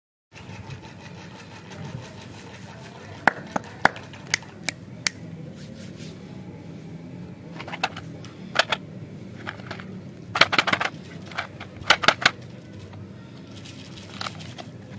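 Sharp clicks and taps from hands handling a small cardboard box of candy-coated chocolates. First come a few single taps, then several quick clusters of clicks later on, over a low steady hum.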